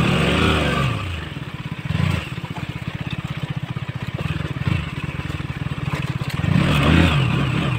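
KTM Duke 200's single-cylinder four-stroke engine pulling at low speed, with the revs swelling and falling back as the throttle is blipped just after the start, around two seconds in, and again near the end.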